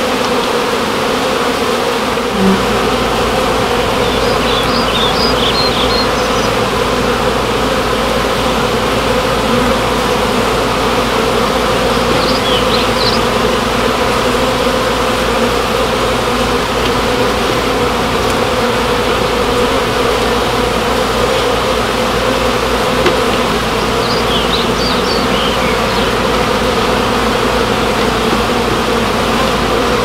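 Many honey bees buzzing: a dense, steady hum from the colony in the opened wall void and around the hive box. A low steady hum joins about two seconds in, and short high chirps come three times.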